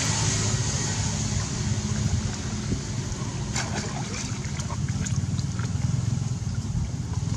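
A steady low motor hum with a hiss over it, and scattered faint clicks and taps from about three and a half seconds in.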